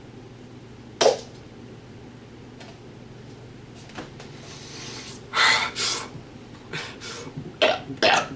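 A single sharp click about a second in. From about five seconds, a series of short breathy rushes of air that come faster toward the end: a man drawing and pushing air while working up a burp.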